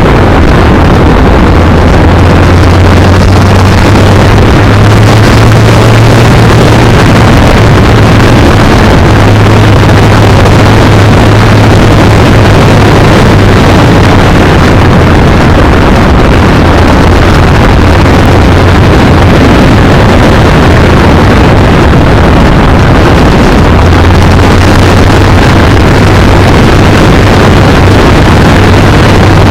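Kawasaki Z900 inline-four engine running at a steady cruise while the motorcycle is ridden, under heavy wind rush on the microphone. The engine note shifts slightly a couple of times.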